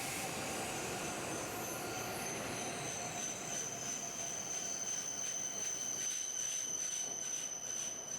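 Train running on rails, with a steady high-pitched whine held over a continuous rushing noise.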